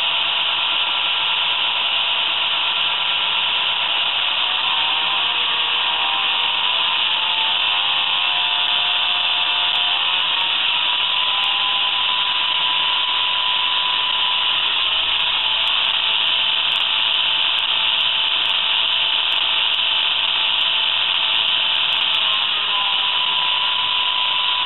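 Digital sound decoder of an H0 NMBS/SNCB class 55 model diesel locomotive playing its diesel engine sound through the model's small onboard speaker, with the locomotive standing still. A steady hissing whir runs throughout, with a whistling tone that rises and falls around the middle and again near the end.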